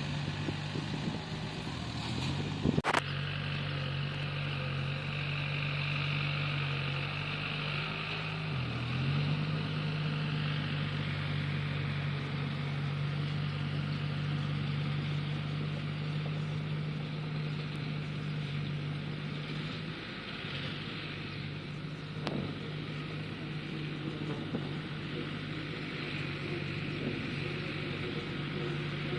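Bulldozer diesel engine running steadily, its pitch dipping briefly twice. There is one sharp knock about three seconds in.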